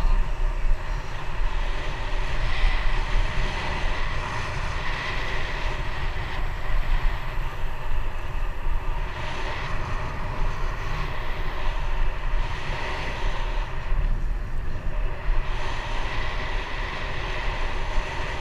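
Wind buffeting an action camera's microphone on a moving bicycle, a steady rushing with heavy low rumble, mixed with the tyres rolling on asphalt.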